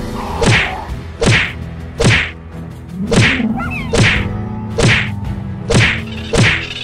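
Cartoon fight impact sound effects: a sharp whack about once a second, eight in all, each with a quick falling swish, as the horned dinosaur strikes the camel. A steady low hum runs underneath.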